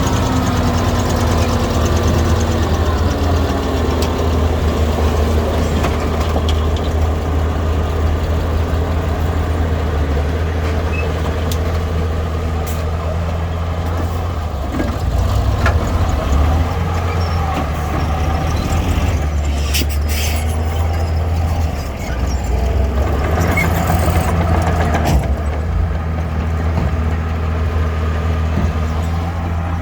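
Heavy diesel earthmoving machinery running steadily with a low, even engine drone, with short hisses about two-thirds of the way through.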